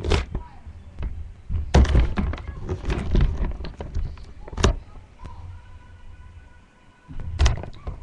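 Camera handling noise: a series of thuds and knocks with rumbling bumps as the camera is picked up, moved and set down, the loudest about two seconds in and another near the end.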